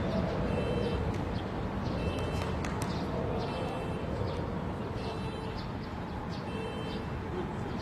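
Ambience of an amateur football match: distant players' shouts over a steady low rumble, with a few sharp knocks about two to three seconds in.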